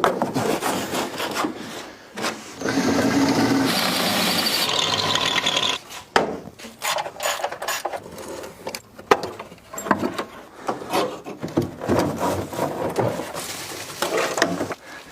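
Scraping and knocking as an old amphibious ATV's body is handled: a long, continuous scrape from about two and a half seconds in to nearly six seconds, then a run of irregular knocks and clatters.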